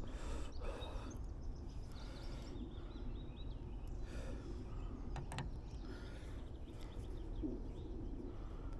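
Outdoor pondside ambience: a steady low rumble with faint birdsong chirping over it, and a single sharp click about five seconds in.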